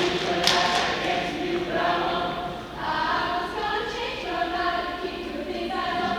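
A high school choir singing, with many voices holding sustained notes.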